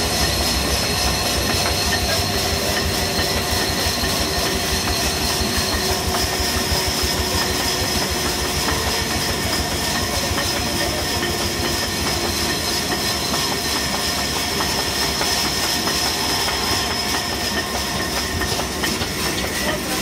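Belt-driven sawmill saw and its electric motor running steadily, a continuous mechanical rattle with a steady high whine.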